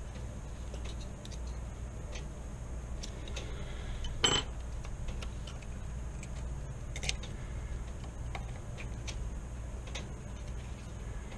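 Small steel parts of a Marlin Model 9 carbine's trigger and fire control group clicking and clinking as they are pushed and worked by hand, with one sharper clack about four seconds in. The parts will not seat because the disconnector's coil spring has been swapped with the bolt stop spring.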